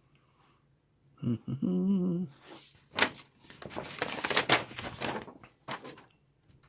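A man's short wavering hum, then a large paper instruction sheet rustling and crinkling for a few seconds as it is handled and folded aside.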